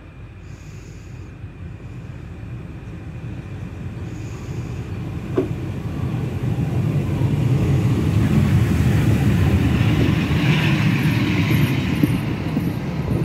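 Class 50 steam locomotive 50 3648 approaching on the neighbouring track and passing close by, its rumble growing steadily louder until the engine and tender go past. A hiss comes as the locomotive draws level, and there is one sharp click about five seconds in.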